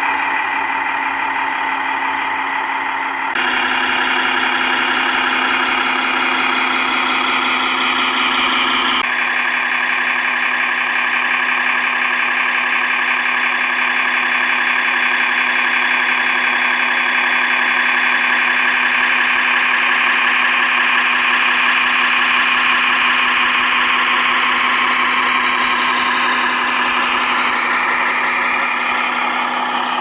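1/14-scale Tamiya Mercedes-Benz Actros RC truck driving, a steady engine-like drone with motor whine. Its sound changes abruptly about three and nine seconds in, and the pitch shifts near the end.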